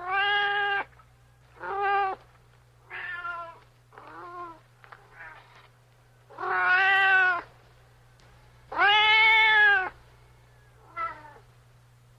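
A cat meowing repeatedly, about eight separate meows of varying length, the two longest and loudest in the second half.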